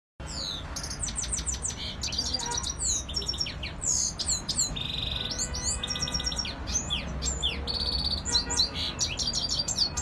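Caged finches singing: an unbroken run of fast high trills, rapid repeated chirps and quick falling whistles, over a low steady rumble.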